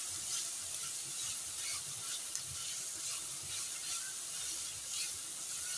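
Chopped vegetables and shredded chicken sizzling gently in a stainless steel pan while a spatula stirs them, scraping the pan in repeated strokes about every half second to second.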